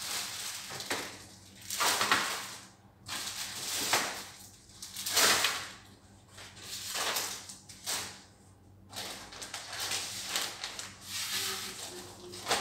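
Plastic-wrapped grocery packs rustling and being moved about by hand, in repeated bursts of crinkling with a few sharp knocks.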